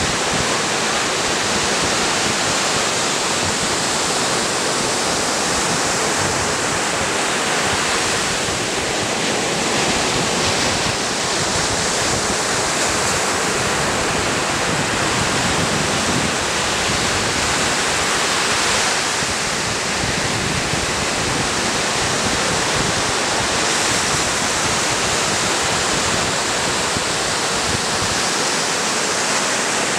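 Ocean surf on a sandy beach: small waves breaking and washing up the shore, a steady rushing hiss that swells slightly every few seconds.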